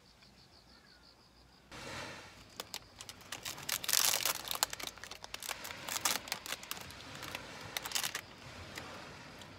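Thin plastic wrapper crinkling and crackling as it is opened and peeled off a macaron, a dense run of sharp crackles starting about two seconds in and loudest around four seconds in.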